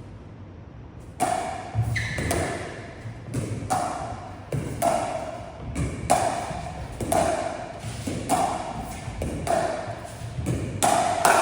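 Pickleball paddles hitting a plastic pickleball back and forth in a dink-and-volley drill: a hollow, ringing pock about once a second, with softer knocks of the ball bouncing between hits. The hits start about a second in.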